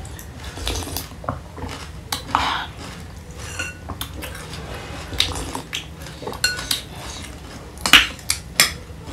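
A spoon clinking and scraping against a plate as chatpate, a spiced puffed-rice mix, is stirred and scooped: a run of short, irregular clinks and scrapes, a few of them ringing briefly.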